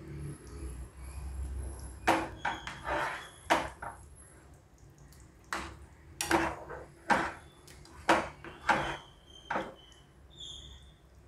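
Steel ladle stirring and scooping thick curry in a metal saucepan, clinking against the pan about a dozen times at irregular intervals.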